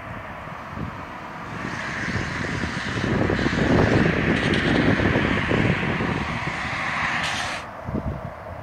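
Gusty wind buffeting the microphone under a rushing vehicle noise that swells a couple of seconds in and cuts off abruptly near the end.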